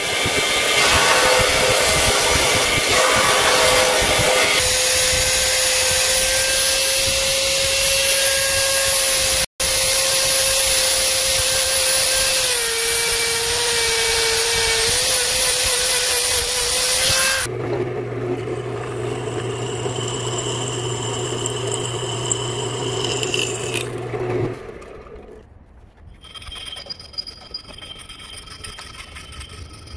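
Handheld rotary tool with a sanding drum grinding the steel tang of a knife, its motor whine dropping in pitch for a couple of seconds as it is pressed into the work. Then a lower, steadier motor hum. Near the end, a hand file scraping back and forth on metal.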